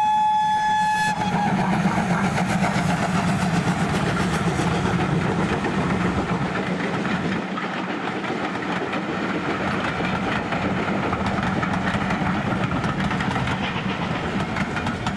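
Steam locomotive's whistle sounding one long steady note that cuts off about a second in, followed by the steady rolling noise of its passenger coaches passing.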